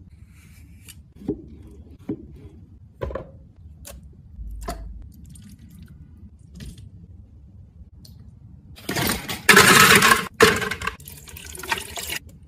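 A few light clinks and taps of glassware and a spoon, as pearls are spooned into a glass cup. Then, about nine seconds in, a louder, noisy stretch of ice and liquid being poured into a blender jug.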